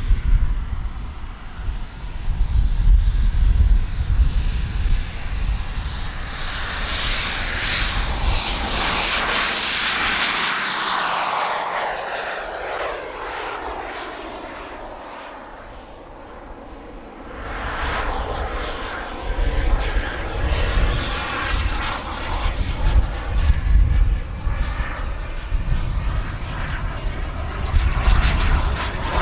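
Twin model jet turbines of a large RC A-10 Warthog running at high power through a take-off roll and climb, with a high whine that rises in pitch over the first ten seconds. The jet noise fades away about halfway through as the model flies off, then returns loud and swelling as it passes again.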